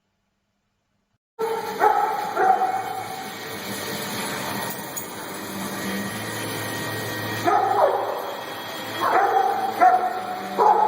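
Dogs barking in short calls, two at first and then a run of several, over a steady background hiss. They come in after about a second and a half of silence.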